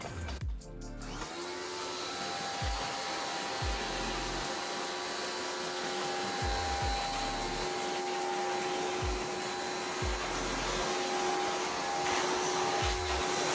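Electric high pressure washer running steadily, spraying detergent solution through the Nilfisk Roof Cleaner pole at low pressure. It starts up about a second in with a steady hum under the spray noise.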